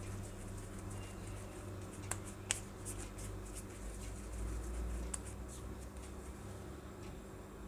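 A few light clicks and taps from hands working at a wooden rolling board, two sharper ones about two seconds in, over a steady low hum.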